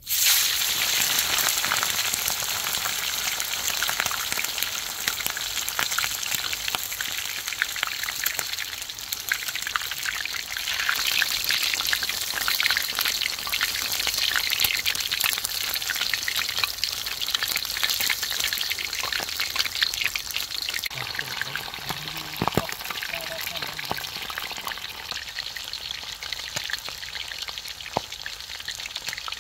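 Food frying in hot oil: a steady sizzle thick with fine crackles and pops.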